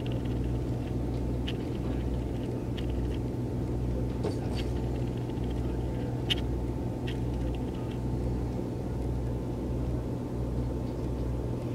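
Steady low engine-like hum with a slow, even throb, and a few faint high ticks or chirps scattered over it.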